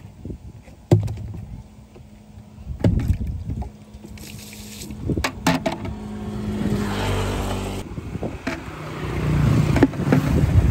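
Engine hum of a motor vehicle passing on the road, swelling about two thirds of the way through and again near the end, with a few sharp knocks.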